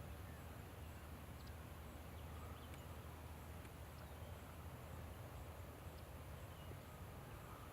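Faint outdoor ambience: a steady low rumble with scattered faint, short high chirps and ticks.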